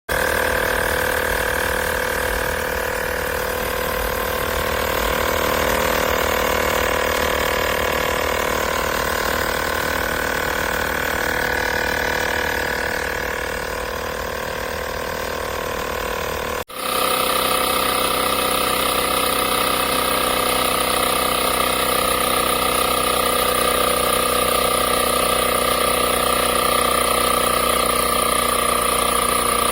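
Blestan cordless tire inflator's small electric piston compressor running steadily. About 17 seconds in it cuts out abruptly and comes straight back on, running again at a slightly different pitch.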